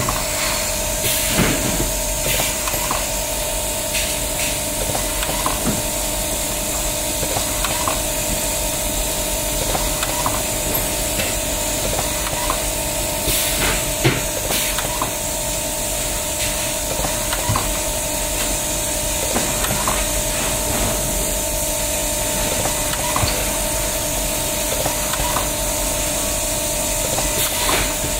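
Automatic nylon cable tie tying machine running with a steady hiss and a two-tone hum, with sharp clicks every second or two as wire bundles are set in its fixture and tied; one click about halfway through is the loudest.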